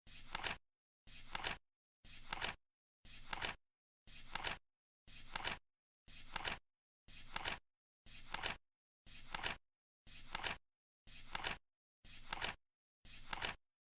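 Flip clock sound effect: a digit card flapping over once a second as the countdown ticks down, each flip a short rustle of about half a second that ends in a sharper snap.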